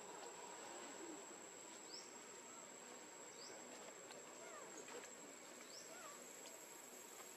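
Faint outdoor ambience: one steady, high-pitched insect tone, with brief rising chirps every second or two.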